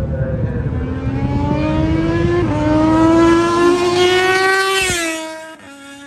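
Britten V1000's V-twin race engine accelerating hard, its pitch climbing with a gear change about two and a half seconds in. Near the end the pitch drops sharply and the sound fades away.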